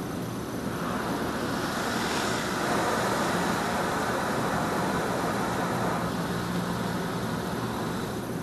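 LaserWash touchless car wash spraying soap onto the car, heard from inside the cabin: a rushing hiss of spray on the windshield and body that builds about a second in and eases after about six seconds, over a steady low hum.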